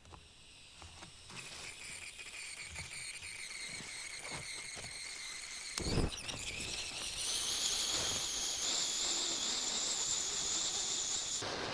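Primus Express Spider II remote-canister gas stove run on an inverted canister (liquid feed): gas hissing out with a high whistle that slowly rises in pitch, a sharp pop about six seconds in as it lights, then a louder, steady hissing burner flame. The highest whistle stops abruptly near the end.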